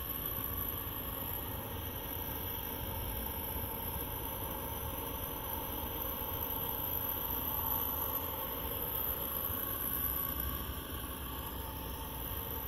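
Steady outdoor hiss with an uneven low rumble and no clear single event.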